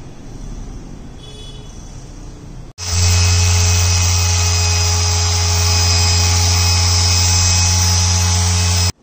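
A small electric motor buzzing steadily at a constant pitch. It cuts in suddenly about three seconds in, loud and unchanging, and stops abruptly just before the end, with only a faint hum before it.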